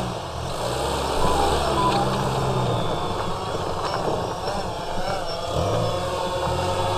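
Subaru engine working under load off-road, its revs rising and falling, with a dip and recovery near the end.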